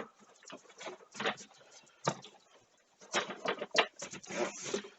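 Irregular scraping, rustling and light knocks of a cardboard box being handled as a computer case is worked out of it.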